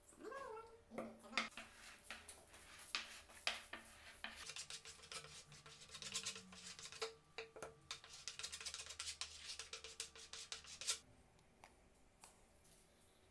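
Notched plastic spreader scraping white wood glue across a wooden door panel: a few separate scrapes and taps, then rapid back-and-forth strokes that stop suddenly near the end.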